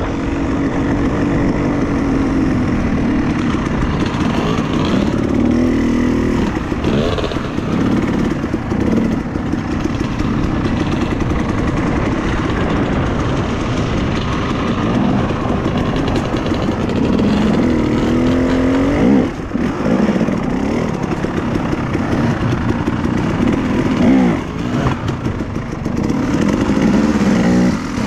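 Dirt bike engine revving up and down again and again as it is ridden, the pitch rising and falling with the throttle, with brief drops in loudness about two-thirds of the way through and again a few seconds later.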